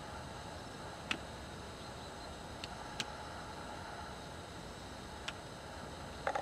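Bonsai pruning cutters snipping small branches off a Japanese white pine: a handful of separate crisp snips over a steady hiss, with a quick pair of cuts near the end.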